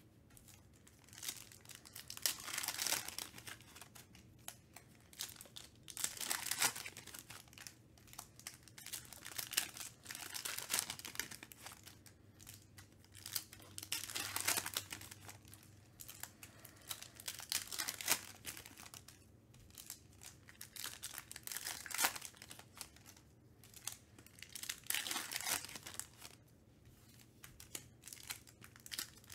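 Foil trading-card pack wrappers crinkling and tearing as packs are opened and handled, in irregular bursts every second or two.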